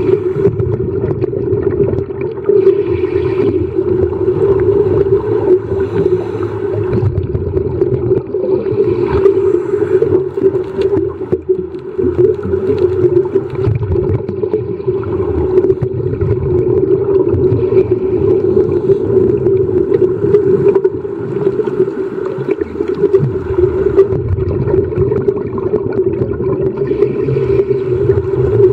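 Underwater sound picked up by a submerged camera: a steady low drone with a rumble beneath and light crackling throughout.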